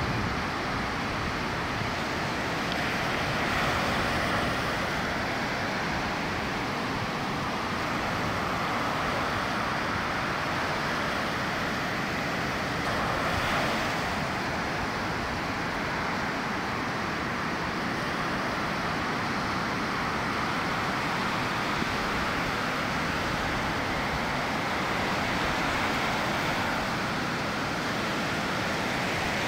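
Ocean surf breaking and washing up the beach: a steady rushing noise that swells a little as waves come in.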